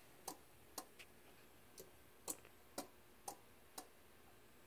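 Faint relay clicks from the control panel's relay board switching its lights, about two a second and mostly evenly spaced.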